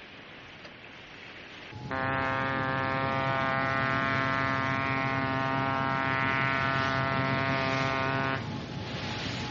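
A ship's horn sounds one long, steady, low blast, starting about two seconds in and lasting some six seconds, over a steady hiss.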